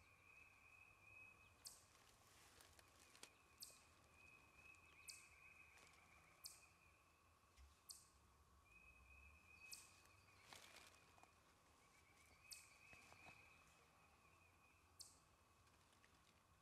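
Quiet spring woodland: a songbird gives a sharp, high chip note every second or two over faint, distant bird trills, with a couple of brief soft rustles, about two and ten seconds in.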